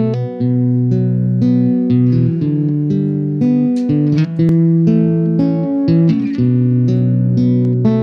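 Live band music with no singing: a picked riff of guitar and keyboard notes that repeats, changes to a different run of notes in the middle, and returns near the end.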